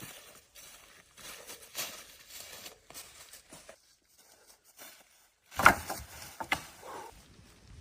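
Intermittent rustling and crunching of branches and forest litter being handled, broken by a loud cluster of sharp knocks or snaps about six seconds in.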